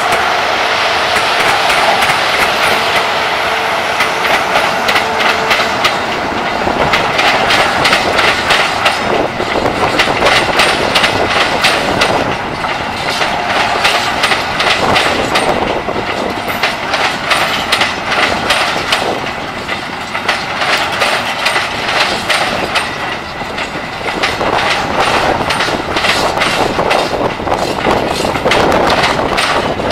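A train of empty flat wagons rolling past close by, the wheels clattering over the rail joints in a fast, continuous run of clicks and knocks. A steady hum runs under it for the first few seconds, then fades.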